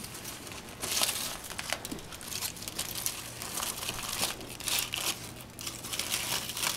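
Aluminium foil crinkling in repeated bursts as a small child's hands pull at and unwrap a foil-wrapped bundle, loudest about a second in and again a little past the middle.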